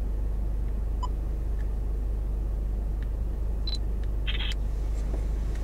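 Car engine idling, a steady low rumble heard from inside the cabin, with a few faint clicks and a brief hiss about four seconds in.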